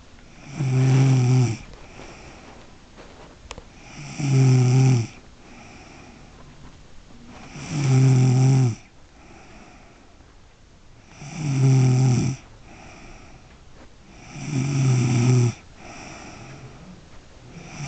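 Someone snoring in deep sleep: five loud snores, each about a second long and about three and a half seconds apart, with softer breathing between them.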